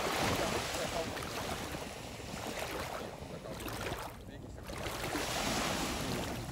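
Small sea waves washing and lapping at the shoreline. The wash eases off about four seconds in and swells again.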